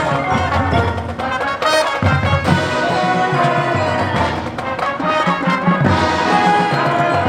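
Marching band playing: brass chords held over drum and percussion hits.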